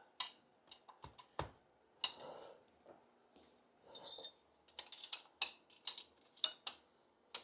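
Light metallic clicks and clinks of small steel engine parts being handled: cylinder base nuts and washers being fitted onto the studs of a Triumph TR6 cylinder block. Scattered single clinks, then a quicker irregular run of clicks about halfway through.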